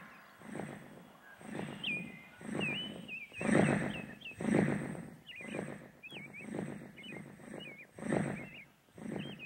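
Large wings beating in a slow, even rhythm, a whoosh a little more than once a second, while small birds chirp in short rising and falling notes.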